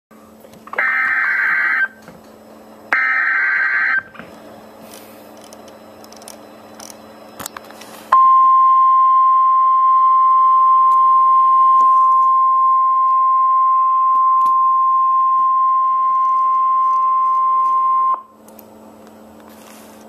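NOAA Weather Radio Emergency Alert System tornado-warning alert: two short buzzy bursts of SAME header data, then the single steady warning alarm tone held for about ten seconds before cutting off sharply.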